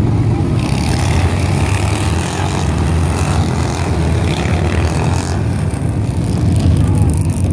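Several motorcycle engines running together as a group of bikes rides past, loudest from about a second in and dying away after about five seconds, over a steady low rumble.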